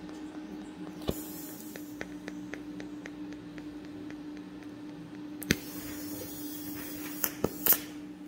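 TIG welding: a steady hum with an arc hiss that comes and goes, broken by a few sharp clicks, one about a second in and a cluster of three near the end.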